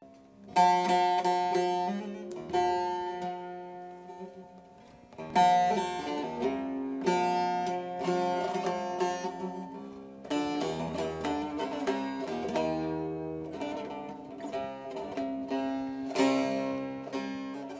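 Solo plucked string instrument playing a slow Turkish folk tune, in phrases that each open with a strong pluck and ring away, about five times.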